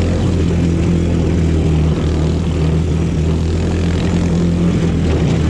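The mini Jeep's 125cc four-stroke single-cylinder engine runs steadily under load at an even pitch as it climbs in low gear on a dirt trail.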